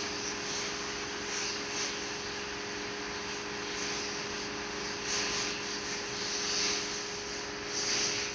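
Water spraying in a truck wash bay, hissing in surges every second or few, over a steady machine hum.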